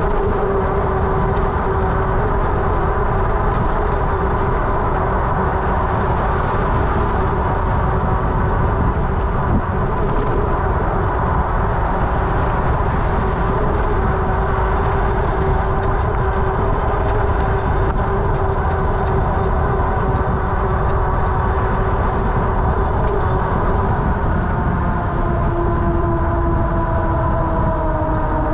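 A fat-tire electric bike's 750 W motor whines steadily over a constant rumble of wind and tyre noise while riding, the whine dipping slightly in pitch near the end.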